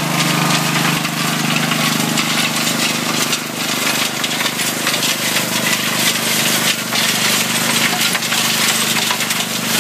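15-yard-an-hour gold trommel running: rock and gravel clattering and tumbling inside the rotating steel screen drum, over a steady engine drone.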